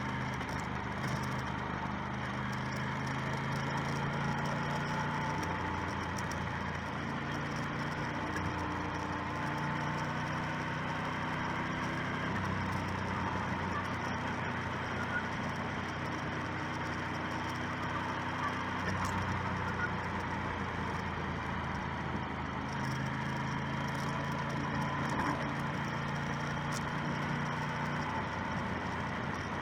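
Motorcycle engine running on the move, its pitch stepping up and down a few times with throttle and gear changes, over steady wind and road noise.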